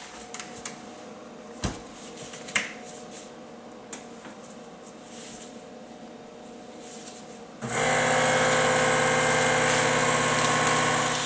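A plastic bag is handled with light clicks and knocks as it is set into a countertop vacuum sealer. About eight seconds in, the sealer's vacuum pump motor starts abruptly and runs steadily with a hum, drawing the air out of the bag, then fades out at the end.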